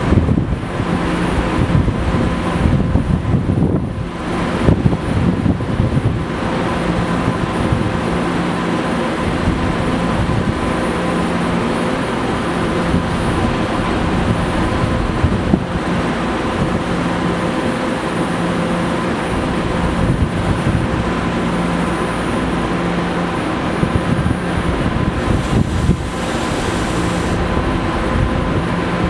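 BART train standing at the platform with its equipment running: a steady mechanical hum with a few held tones and some low rumble. A brief high hiss comes near the end.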